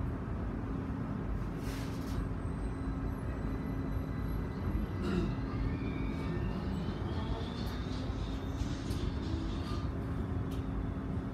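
Steady low hum and rumble of a stationary Konstal 114Na tram, heard from inside. A rising electric whine comes in about halfway through.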